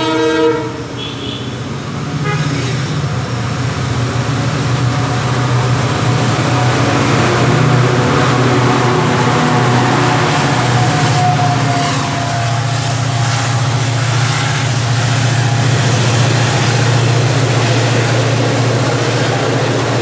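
Horn blast from an Indian Railways WDP4 diesel locomotive (a two-stroke EMD diesel) ending about half a second in. The locomotive then runs through the station at speed with its engine's steady low drone, and its passenger coaches rush past close by. The rushing noise builds from about two seconds in and stays loud.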